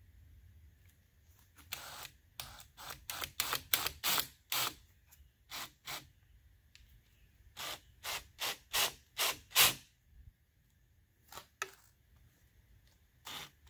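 Cordless drill run in short bursts on the trigger, its twist bit cutting into a PVC pipe. About twenty quick bursts come in three runs, the last pair a couple of seconds before the end.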